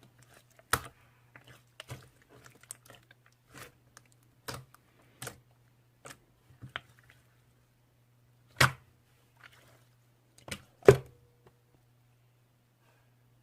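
Clear slime being squeezed and poked, giving off scattered sharp clicking pops at an uneven pace, with two louder pops near the end before it goes still.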